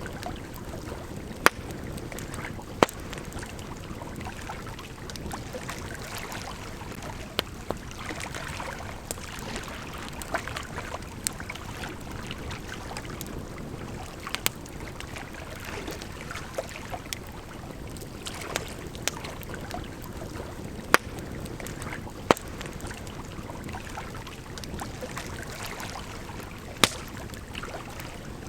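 Campfire crackling, with sharp pops at irregular intervals, over the steady rush of a gently flowing river.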